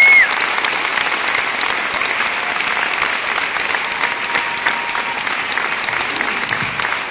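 Concert audience applauding steadily and loudly, with one brief high rising call cutting through at the very start.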